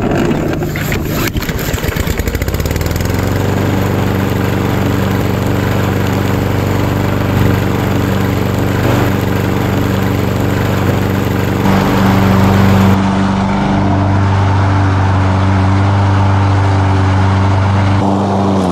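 Lawn mower engine starting and coming up to speed over the first couple of seconds, then running steadily, with a slight change in its note around two-thirds of the way through; it begins to wind down at the very end.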